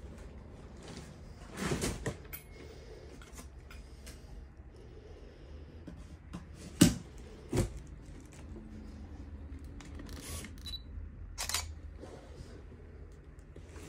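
Phone handling noise and scattered knocks and clicks over a low steady hum, the loudest knock about seven seconds in, followed closely by a second.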